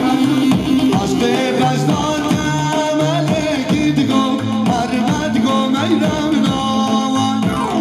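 Middle Eastern folk-style music with singing over a steady drum beat, typical of Kurdish wedding dance music.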